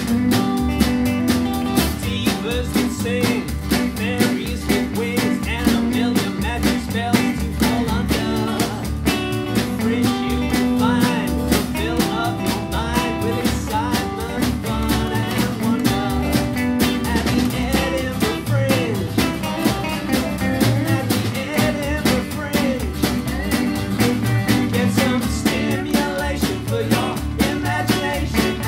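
Rockabilly band playing live: upright double bass, strummed acoustic guitar, electric guitar and a small drum kit of snare and cymbal, with a man singing lead over a steady beat.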